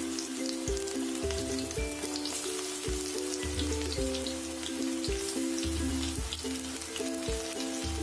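Moth dal pakora batter deep-frying in hot oil in a kadhai: a steady sizzle full of small crackles. Background music with melodic notes and bass plays over it.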